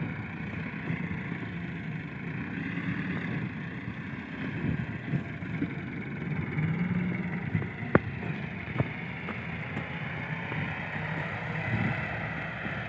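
Distant Massey Ferguson 385 tractor's diesel engine running steadily as it works the field with its front blade. A sharp click sounds about eight seconds in, with a fainter one just after.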